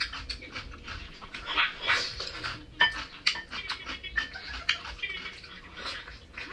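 Close-up eating sounds: chewing and wet mouth noises, with chopsticks clicking against the bowls.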